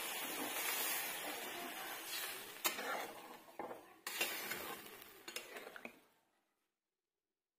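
Curry sizzling in a metal wok, fading over the first few seconds, while a steel spatula stirs it and clinks against the pan a few times. The sound cuts off about six seconds in.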